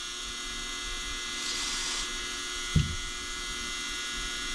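Steady electrical hum with a high buzzing edge, and a single soft knock about three seconds in.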